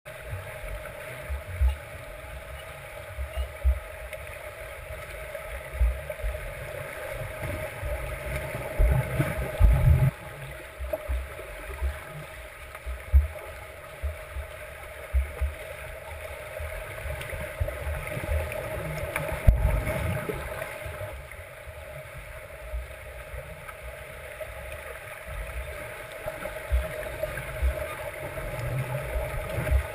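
Underwater swimming-pool sound: a steady muffled wash with irregular low thumps and sloshes from lap swimmers' kicks and strokes passing overhead, a few of them louder.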